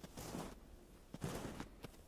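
Footsteps crunching in snow: two steps about a second apart.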